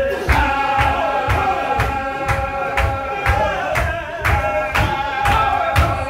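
A large group of men chanting a Qadiri Sufi zikr in unison, holding long sung notes over a steady beat of stamping and clapping about twice a second.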